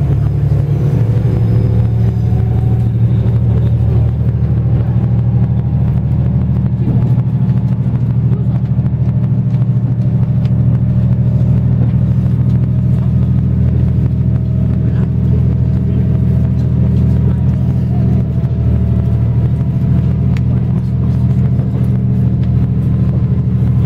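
KiHa 185-series diesel railcar's engine running under power as the train pulls away, heard inside the passenger cabin: a steady low drone whose pitch rises slowly.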